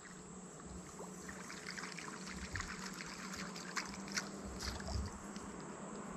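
Water lapping and trickling, with scattered small splashes.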